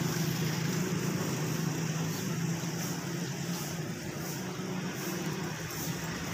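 Samosas deep-frying in a large wok of hot oil: a steady sizzle over a steady low drone.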